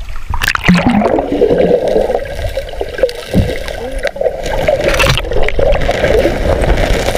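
River water gurgling and rushing close by, with splashes about half a second in and again around five seconds in.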